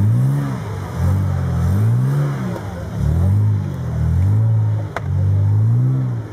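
A modified off-road 4x4's engine revving hard under load as it claws up a steep dirt bank. Its pitch rises and falls in repeated surges about once a second, and there is a single sharp click about five seconds in.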